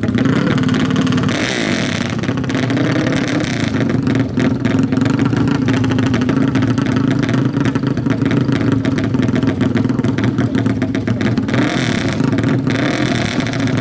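Four-stroke 450 ATV engine running loud and steady with rapid exhaust pulses, with two stretches of brighter, harsher noise, one near the start and one near the end.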